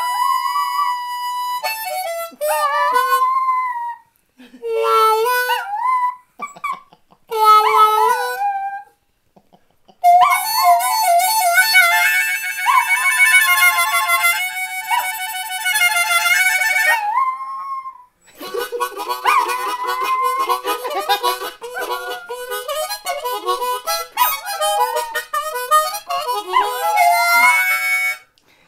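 Blues harmonica played in phrases with short pauses, with a long stretch of held chords about ten seconds in and busier bending notes after. A small dog howls along near the end.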